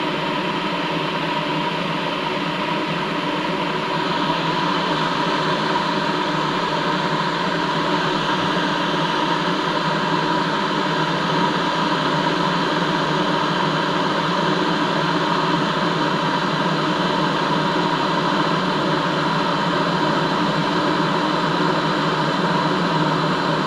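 Electric kettle heating water: a steady rushing hiss that gets a little louder about four seconds in.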